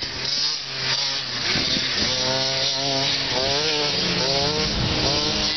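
A youth mini dirt bike's small engine is buzzing as it rides away. Its pitch rises and falls several times as the throttle is opened and eased.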